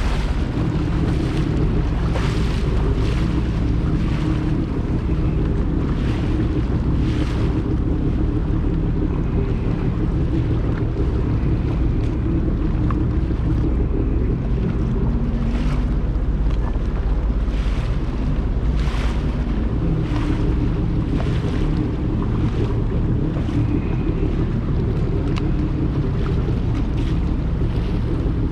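Water slapping and splashing against the hull of a small boat moving slowly across choppy water, in irregular bursts about once a second, over a steady low rumble and wind on the microphone.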